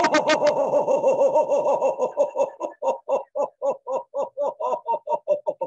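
A woman chanting a long, fast 'ho, ho, ho' on one breath, mouth wide open: a laughter-yoga belly-laugh exercise that works the diaphragm. The first 'ho's run close together, and from about halfway they come apart into even pulses of about five a second.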